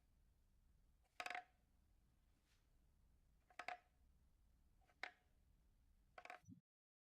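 Four short, sharp clicks with a slight ring, about a second and a quarter in, then at roughly three and a half, five and six seconds, over a faint hiss.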